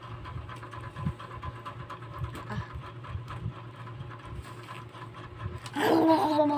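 Steady low hum, most likely an electric fan, with light knocks and rustles of plastic dolls being handled. Near the end a girl's voice starts a long drawn-out sound that slowly falls in pitch, louder than the hum.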